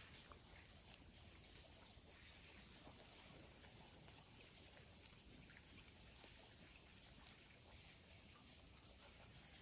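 Near silence with a faint, steady, high-pitched insect chorus, and a soft tick about five seconds in.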